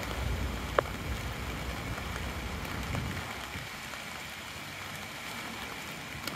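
Steady hiss of rain falling on wet pavement, with one short sharp click about a second in.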